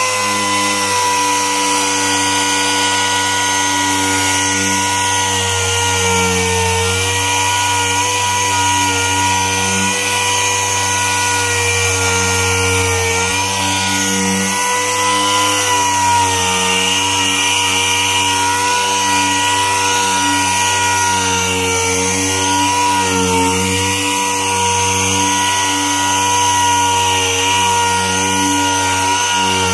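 Random orbital sander with a 150 mm Mirka Abranet 120-grit mesh pad running while sanding a car bonnet: a steady whine whose pitch dips briefly every few seconds as the pad is pressed on.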